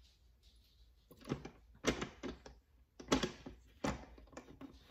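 A series of short, sharp clicks and knocks, about six over three seconds after a quiet first second. They come from handling a switched-off Sunbeam stand mixer, its motor silent and its beaters raised over a stainless steel bowl.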